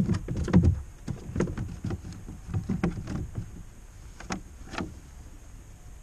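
Irregular knocks, clicks and bumps from someone moving about and handling gear in a small fishing boat. They are densest and loudest in the first second, continue in a scattered run for about three more seconds, and then thin out to a couple of isolated knocks.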